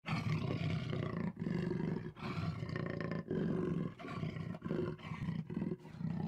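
Big cat growling and roaring, used as the jaguar's voice: a run of rough, low calls, each under a second long, with brief breaks between.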